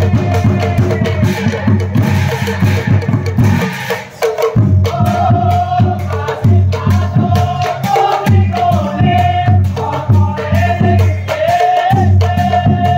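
Assamese nagara naam: nagara drums beaten in a fast, driving rhythm with clashing bhortal cymbals. After a brief drop about four seconds in, the drumming resumes and voices sing a long held line over it.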